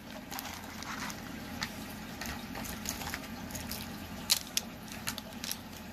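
Clear plastic packaging of a beaded necklace crinkling and clicking as it is handled and laid down, with a few sharper clicks a little past four seconds in.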